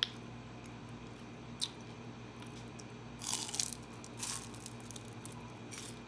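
Crunching bites and chewing of a fried cheese stick's crisp wrapper: a handful of short crackly crunches, the loudest cluster about halfway through.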